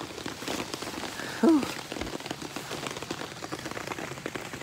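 Steady rain falling, with many individual drops ticking close by. About a second and a half in, a brief voice sound from a person stands out over it.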